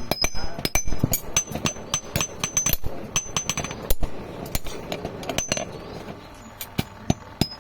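Hand hammers striking iron on an anvil in quick, irregular blows, each ringing with a high metallic tone. The hammering thins out about four seconds in and picks up again near the end.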